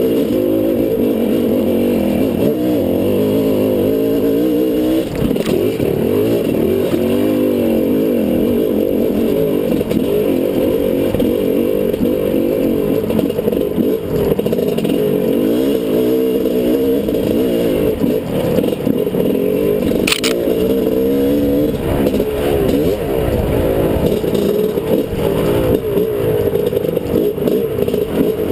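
Dirt bike engine running hard, its pitch rising and falling over and over with the throttle. A single sharp knock cuts through about twenty seconds in.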